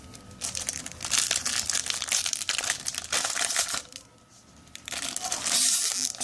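Foil trading-card pack wrapper being crinkled and handled, in two spells of crackling with a pause of about a second between them.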